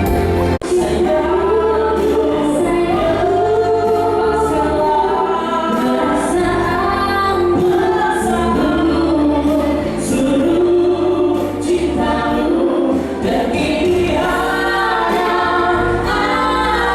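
Music: a slow song with held sung notes over a steady bass accompaniment, briefly cutting out about half a second in.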